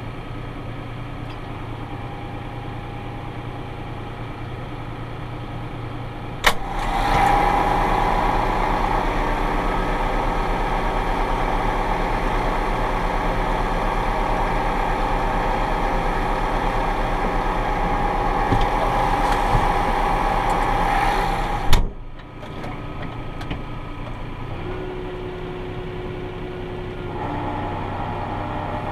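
Tractor engine running steadily. A sharp click comes about six seconds in, and the engine is louder for about fifteen seconds after it; a second sharp click then drops it back to the quieter level.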